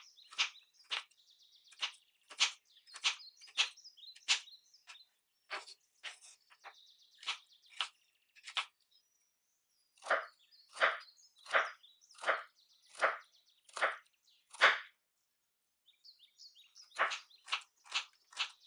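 Kitchen knife chopping on a cutting board in runs of single strokes, about two a second, broken by short pauses; a louder, slower run of strokes comes in the middle.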